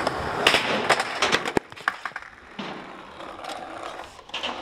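Skateboard wheels rolling on concrete, with sharp clacks and one hard impact about a second and a half in: a failed grind attempt on a metal ledge, with the board hitting the ledge and ground as the skater falls. Quieter rolling follows.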